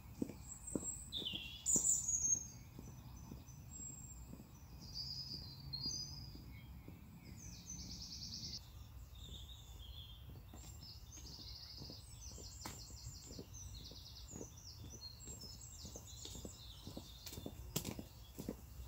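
Several songbirds singing, with short phrases and fast trills, the loudest call about two seconds in. Under them, the faint steady footsteps of wellington boots on a dirt path.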